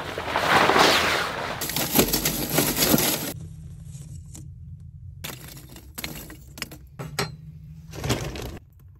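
A grill cover rustles as it is pulled off a Big Green Egg ceramic grill, then scattered brittle clinks and knocks of lump charcoal and wood chunks being handled in the firebox.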